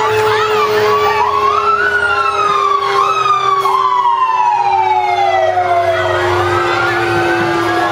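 Several fire engine sirens wailing at once, their pitches rising and falling and overlapping, with one long tone winding slowly down in pitch, over a low truck engine rumble.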